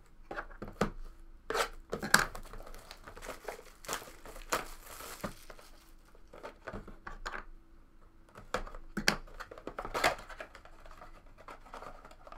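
Plastic shrink-wrap being torn off a sealed trading-card box and crinkled, with the cardboard box handled: a run of irregular rips, crackles and scrapes, thickest about four to five seconds in.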